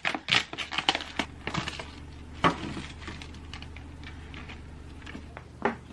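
Crinkling and clicking of plastic food packaging as the clear film and lid come off a plastic tray of fried tofu (inari) sushi. There is a dense run of crackles and clicks at first, one sharper click about halfway through, and fainter rustles and a couple of clicks near the end.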